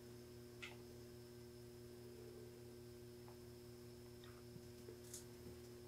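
Near silence: a faint, steady electrical hum, with three faint small clicks.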